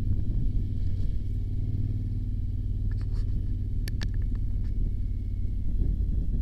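Motorcycle running on the move, a steady low engine and road rumble, with a few sharp clicks about three to four seconds in.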